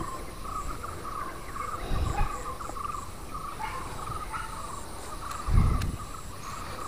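Crickets chirping in fast pulsed trills with no break. Two dull thumps land over it, about two seconds in and a louder one about five and a half seconds in.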